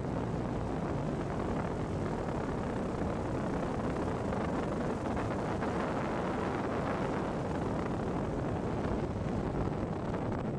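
Steady rush of wind over the microphone of a camera in flight.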